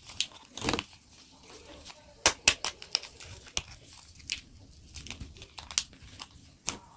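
Paper stick sachets of powdered supplement being handled and torn open: irregular crinkling and sharp tearing crackles, the loudest cluster about two and a half seconds in.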